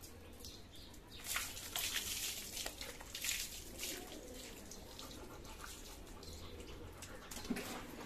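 Short bursts of wet scrubbing and splashing as a plastic brush is worked over a soaked dog's coat. The bursts are strongest in the first half, then fade to faint wet sounds.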